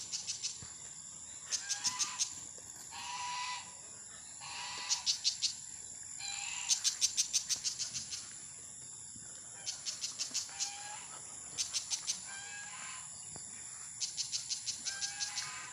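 Insects keep up a steady high-pitched drone, broken by repeated bursts of rapid chirps about a second long, with short whistled bird calls in between.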